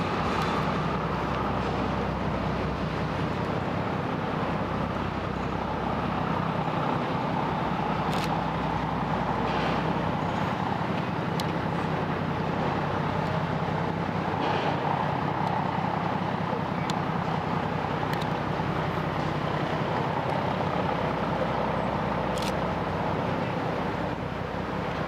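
Steady low rumble of distant motor noise, unchanging throughout, with a few faint clicks.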